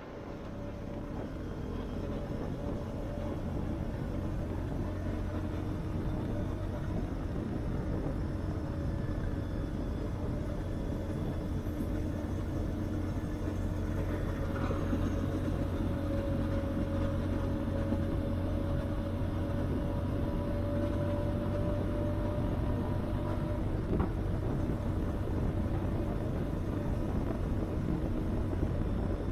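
Benelli TRK 502X's 500 cc parallel-twin engine running steadily, with a low, even hum. It fades in at the start, and its pitch drifts slightly partway through.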